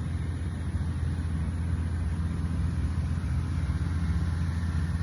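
Steady low engine hum running evenly at one pitch, with no change in speed.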